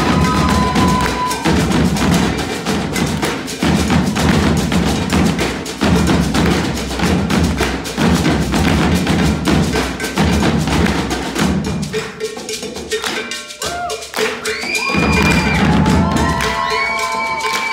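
Brazilian drumming ensemble playing together: rope-tensioned drums struck with sticks in a fast, steady rhythm over deep repeating bass beats. About twelve seconds in the drumming thins out, and high held tones that slide in pitch sound over it.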